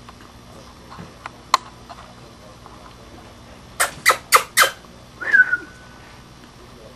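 Baby mink squeaking: four quick, sharp squeaks at about four a second, then one squeal that drops in pitch and holds briefly. A single sharp click comes a little before.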